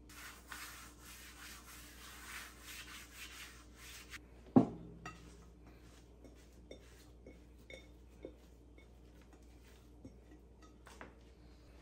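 A hand spreading flour over a silicone pastry mat, a dry rubbing hiss for about four seconds. Then a single sharp knock from the glass mixing bowl, the loudest sound, followed by light scattered taps as the dough is tipped out of the bowl onto the mat.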